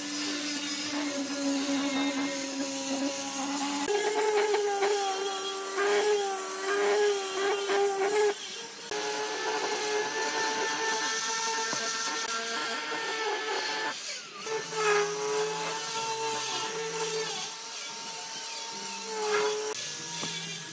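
Angle grinder fitted with a cylindrical sanding drum, running at high speed and sanding the curved faces of a wooden furniture leg. Its steady whine changes pitch a few times as the load on the tool varies.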